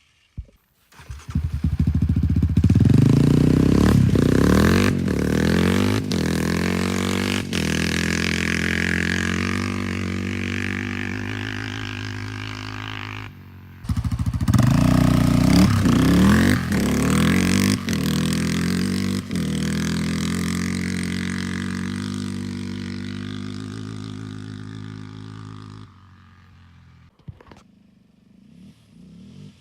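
Yamaha Raptor 700 ATV's single-cylinder four-stroke engine through a Barker's dual exhaust, revving up and then running, growing gradually quieter. It breaks off suddenly about halfway, comes back with another round of revving, then fades and drops away a few seconds before the end.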